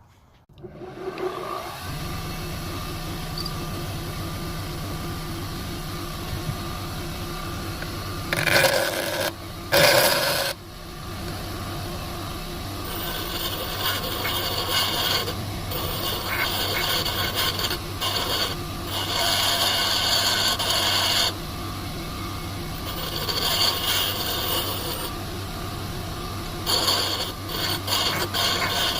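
An electric power tool's motor starts about two seconds in and runs steadily. Two loud bumps come around eight and ten seconds in, then a rusty steel centre punch is pressed against the spinning tool again and again, giving spells of harsh scraping and grinding as the rust is taken off.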